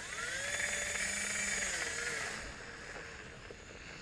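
Portable mini blender bottle's motor running with its blades churning milk and mango pieces: the whine rises as it spins up, holds, then falls and stops about two and a half seconds in.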